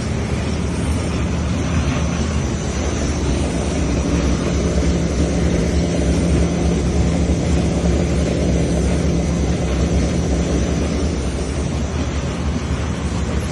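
Raffia-cloth cutting machine running steadily: a constant motor hum with a faint high whine above it.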